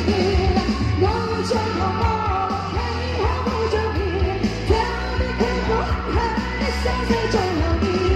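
Female singer singing live into a handheld microphone over a loud Cantopop backing track, with a steady heavy bass and beat under the voice.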